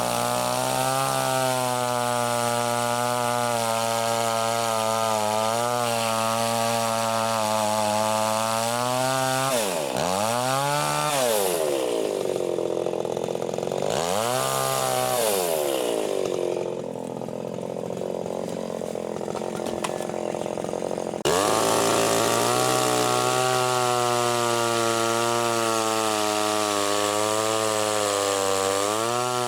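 Chainsaw engine running at high revs while cutting wood. Twice, about ten and fourteen seconds in, the revs drop and climb back. It then runs slower and quieter for a few seconds before full revs come back abruptly.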